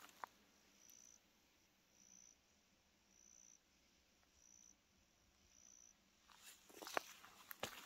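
An insect calling faintly: a short, high buzz repeated five times, about once a second. Footsteps on the trail start again near the end and are the loudest sound.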